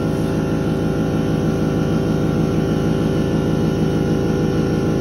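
Air compressor running steadily for paint spraying, a loud, even motor drone.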